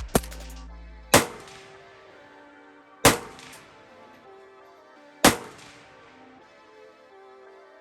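Century Arms RAS47 AK-47 rifle firing 7.62x39 rounds in slow single shots: three loud shots about two seconds apart, each with a ringing tail, and a quieter one at the start. Background music plays under them.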